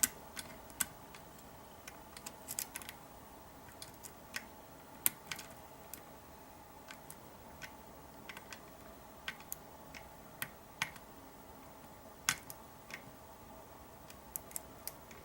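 Irregular light clicks and ticks, some in quick little clusters, from lock picks working inside a Kwikset SmartKey deadbolt cylinder as its sliders are probed and moved between gates against the sidebar.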